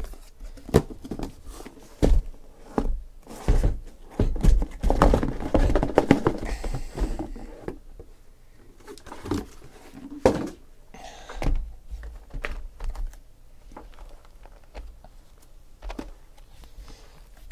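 Cardboard hobby boxes and their cardboard shipping case being handled on a table: a series of knocks and thunks, with a stretch of cardboard scraping and sliding a few seconds in, then scattered lighter knocks as the boxes are moved around.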